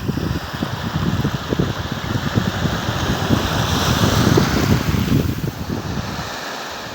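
Ocean waves breaking and washing ashore, the surf swelling to a peak midway and easing off near the end, with a low gusty rumble of wind underneath.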